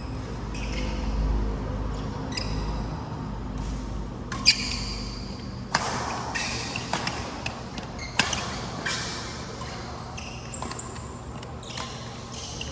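Badminton rally in a large sports hall: sharp smacks of racket strings on the shuttlecock a second or two apart, the loudest about midway, with short high squeaks of court shoes on the floor and the hall ringing after each hit.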